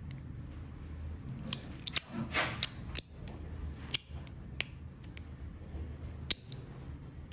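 Metal fidget slider clicking in the hand: a dozen or so sharp, irregular clicks, with a short scraping slide about two seconds in.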